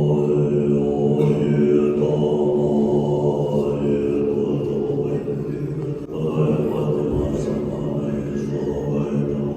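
Tibetan Buddhist monks chanting prayers in low, sustained voices, with a brief break about six seconds in.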